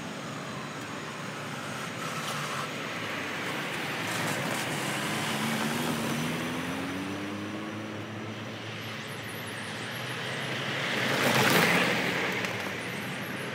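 GBRF Class 66 diesel locomotive's two-stroke EMD V12 engine running as it slowly draws its cement tanker train away, the engine note rising for a few seconds about halfway through. A louder rushing swell builds and fades about eleven seconds in.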